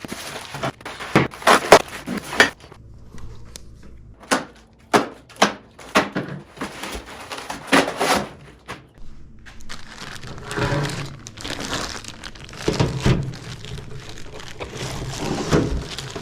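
Parts of a metal planer stand being unpacked and set down, giving a series of sharp knocks and clunks with packaging crinkling. About ten seconds in this gives way to denser, steadier handling noise.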